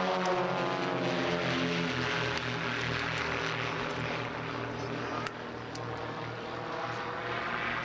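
Formation of Pitts Special aerobatic biplanes passing overhead, their propeller engines droning together; the engine pitch falls in the first second as they go by, then the drone carries on and slowly fades.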